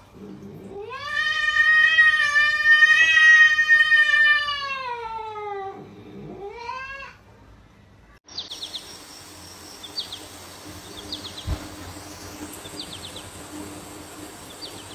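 A pet's long, drawn-out yowling call lasting about five seconds, rising at the start and sagging at the end, followed by a short rising second call. After a break, a quieter outdoor background with faint high chirps repeating every second or so.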